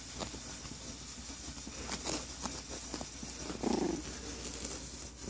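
Four-week-old puppies moving about, with scattered small clicks and scuffles and one short grunt about four seconds in.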